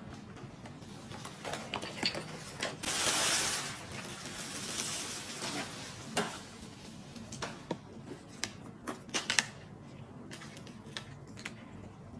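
Handling noise from small objects being moved by hand: a brief rustle about three seconds in, then scattered light clicks and taps, with a cluster of sharper clicks in the middle.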